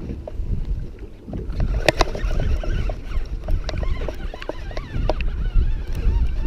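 Wind on the microphone and water noise aboard an offshore fishing boat, a steady low rumble. From about a second and a half in, scattered sharp clicks and knocks of gear on the boat join it.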